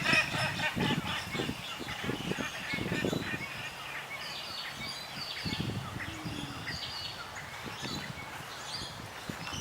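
Several birds chirping and calling in short, scattered high-pitched notes, with irregular low soft thumps underneath.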